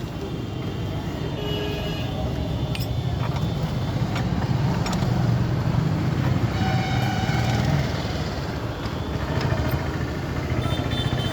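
Motorcycle engine running, its rumble building for several seconds and easing off, then building again near the end, with vehicle horns tooting briefly a few times.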